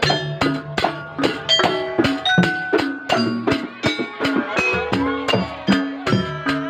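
Live band playing an instrumental passage: evenly spaced drum strikes about twice a second under a plucked-string melody.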